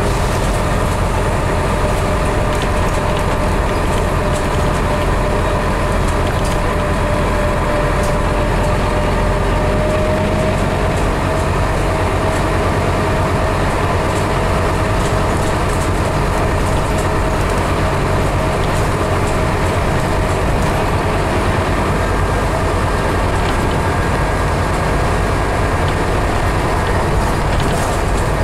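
Scania CN270UB city bus under way, heard from inside the passenger cabin: a steady engine and drivetrain rumble with road noise, and a faint whine that rises slowly in pitch.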